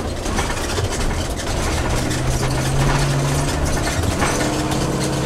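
Ford V10 gas engine of a 2016 Fleetwood Bounder motorhome running at low speed, heard from inside the cab together with road noise. A steady low drone comes in about two seconds in.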